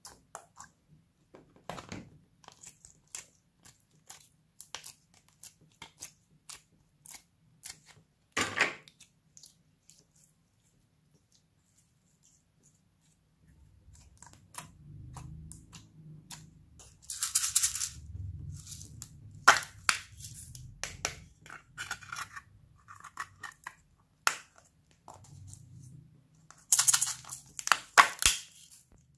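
Hands squishing and pressing glossy slime in glue, with small sticky clicks and pops. Louder crackling handling bursts come about halfway through and near the end, as a slime piece is peeled out of a thin plastic shell.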